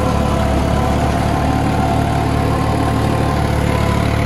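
New Holland 3630 tractor's diesel engine running steadily under load as it pulls a rotary super seeder through tilled soil.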